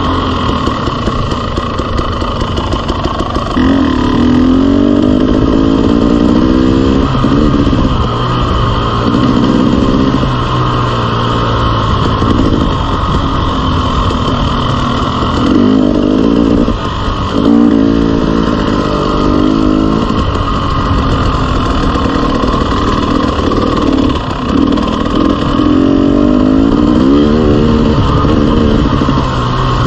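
Dirt bike engine under way, rising in pitch and dropping back every few seconds as the throttle is opened and rolled off.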